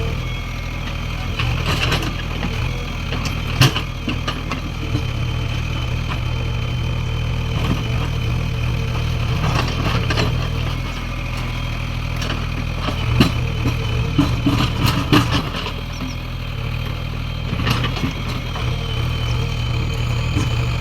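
A JCB 3DX backhoe loader's diesel engine runs steadily under work. Sharp knocks and clatter come now and then, from the machine working in stone.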